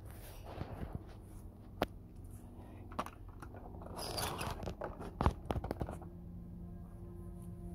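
Crunching, rustling handling noise with several sharp knocks as a handheld camera is moved about in undergrowth. Near the end a steady ringing drone, like a singing bowl, sets in.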